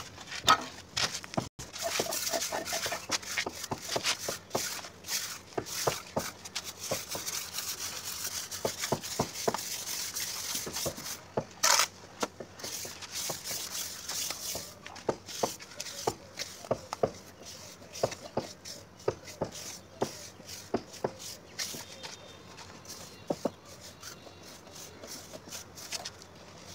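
Plastering trowel scraping and tapping wet cement plaster onto a brick wall: a busy run of irregular scrapes and clicks, with one sharp loud scrape about twelve seconds in, thinning to sparser taps in the second half.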